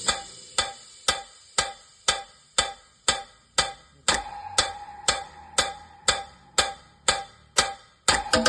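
DJ treble-test track of sharp, crisp ticks, about two a second, played through a speaker top with dual high-frequency drivers. A faint held tone joins the ticks about four seconds in.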